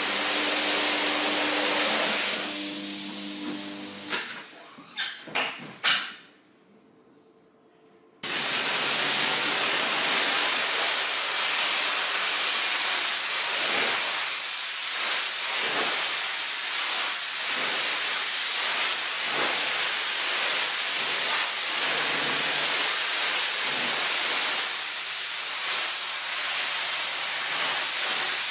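Water spray hissing steadily, with a faint motor hum at first; it dies away about four seconds in, a few sharp clicks follow, then it falls quiet. About eight seconds in the spray starts again abruptly and runs on.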